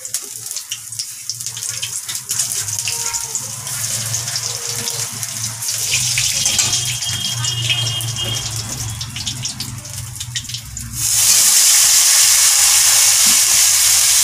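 Panch phoron, dried red chillies and grated ginger crackling and spitting in hot oil in a steel kadai. About eleven seconds in, chopped vegetables go into the oil and it breaks into a much louder, steady sizzle.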